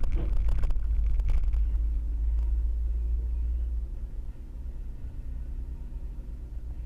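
Deep rumble of a car driving, engine and road noise, picked up by a dashboard camera inside the cabin. It drops quieter about four seconds in, and there are a few faint knocks near the start.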